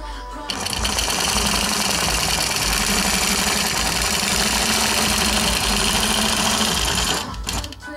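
Quilting machine stitching steadily at speed, its needle and motor running with a steady hum. It starts abruptly about half a second in and stops about seven seconds in.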